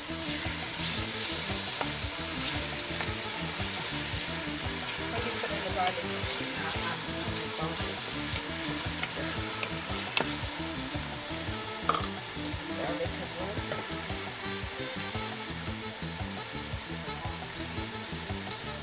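Chopped onions and green onions sizzling in hot corn oil in a stainless steel pot while a wooden spoon stirs them. There are a few sharp knocks, the loudest about ten seconds in.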